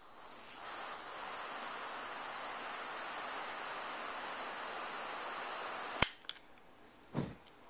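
A lighter flame hissing steadily for about six seconds while melting the cut ends of two paracord strands together, then shut off with a sharp click. A short soft knock follows near the end.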